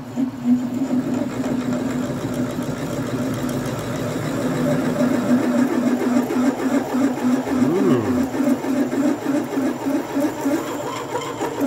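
Atlas metal lathe running at about 300 RPM while a new twist drill bit cuts into mild steel: a steady machine hum with cutting noise, turning into a pulsing beat in the last few seconds.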